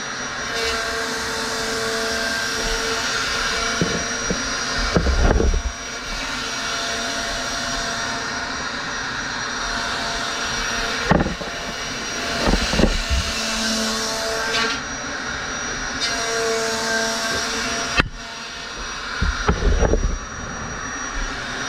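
Triton plunge router running steadily, cutting a foam surfboard blank as it is guided along a profiling jig's rails. A few knocks break in along the way.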